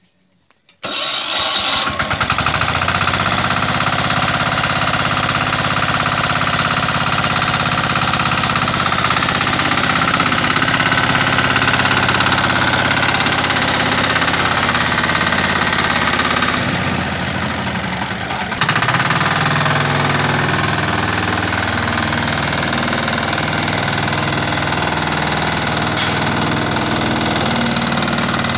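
Shrachi mini power tiller's single-cylinder engine comes in suddenly about a second in and runs steadily. Its sound shifts abruptly about two-thirds of the way through, and there is one sharp click near the end.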